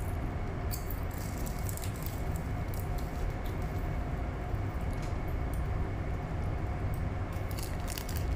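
Steady low rumble and faint hum inside a passenger train carriage, with short, scattered crackles of a crisp packet and crisps being crunched.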